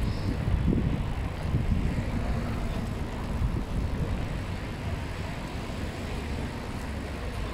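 Street traffic noise heard from a moving bicycle: a steady low rumble with hiss, easing a little in the second half.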